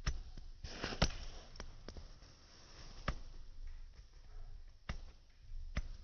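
Faint snowstorm wind, with a brief rush of hiss about a second in and several sharp clicks scattered through.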